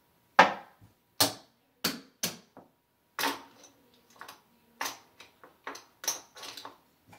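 Casino chips clicking as they are stacked and set down on a felt craps table: about ten sharp, irregular clacks, with a longer clatter of chips about three seconds in.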